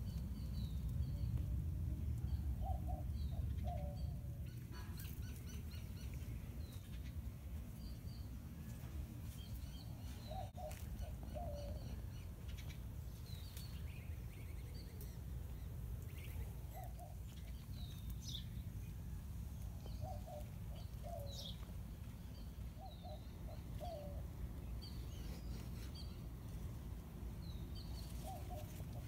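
Outdoor birdsong: a short, low call of two or three quick notes repeats every few seconds, with scattered high chirps between. Under it runs a low, steady rumble, louder in the first few seconds.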